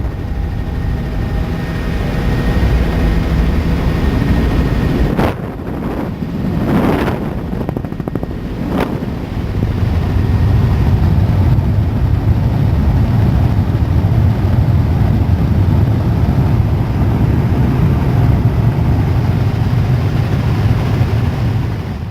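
Helicopter running, a loud steady drone with a faint high whine early on. It dips briefly with a few knocks midway, then runs heavier and steady until it cuts off abruptly.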